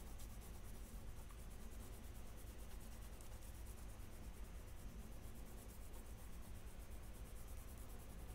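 Faint scratchy rubbing of an oil pastel on paper, colouring in with repeated strokes, over a low room hum.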